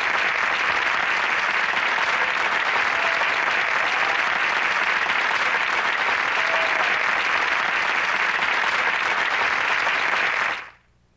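Sitcom studio audience applauding steadily, fading out quickly near the end.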